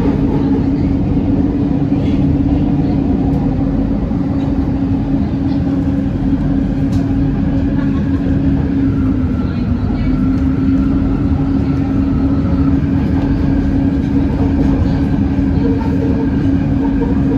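Bombardier Innovia ART 200 LRT train running at steady speed: a constant low hum over a dense rumble, the hum dipping slightly in pitch about halfway through.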